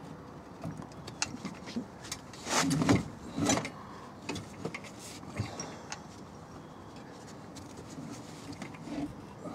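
Gearbox being worked loose from the engine on a trolley jack: scattered light metal knocks and clicks, with two louder scraping rushes about two and a half and three and a half seconds in.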